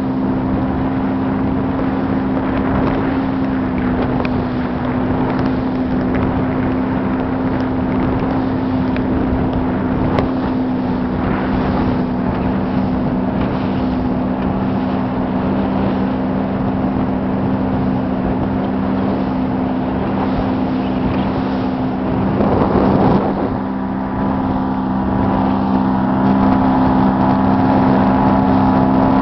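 Small motorboat's engine running at a steady speed, an even low hum over a constant rush of water and wind noise. About three-quarters of the way through there is a brief louder rush.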